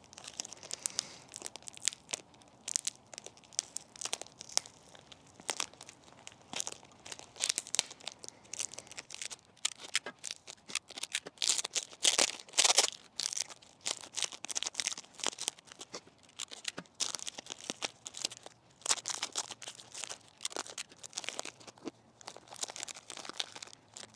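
Plastic packaging crinkling and tearing in irregular crackles and snaps as it is pulled off a potted plant's pot and soil.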